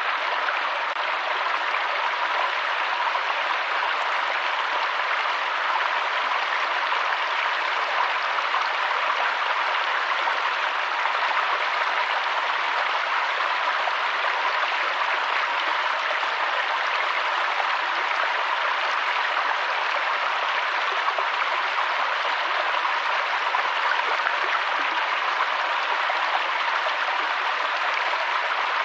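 Waterfall: falling water rushing in a steady, unbroken hiss, with almost no deep rumble.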